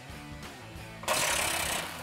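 Milwaukee M18 cordless impact driver with a T40 Torx bit running in one short burst of under a second, about halfway through, backing out a bumper bracket screw. Background music plays throughout.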